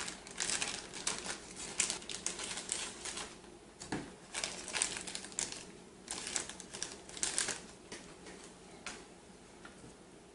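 Thermal pad sheets and their plastic backing film being handled: crinkling and crackling in short, irregular bursts, with a soft knock about four seconds in.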